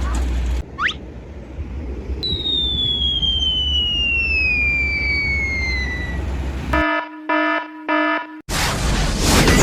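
Edited sound effects over a low steady hum: a quick rising whistle, then a long falling whistle that drops over about four seconds. Then three short buzzer-like beeps, and a loud sudden boom near the end.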